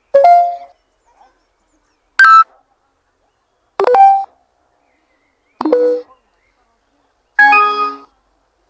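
A run of five short electronic chimes from smartphones, each a different charger-connected alert tone, about two seconds apart with silence between them.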